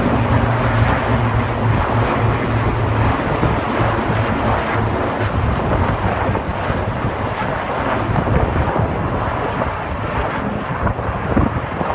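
Four Westland Lynx helicopters flying past overhead in formation: steady rotor and turbine noise with a low hum that weakens about three seconds in.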